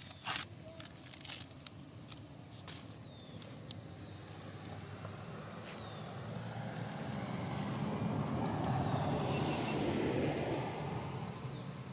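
A passing vehicle: a rushing noise that builds over several seconds, is loudest near the end and then fades. A few sharp tearing clicks in the first seconds come from corn husks being stripped off the cobs.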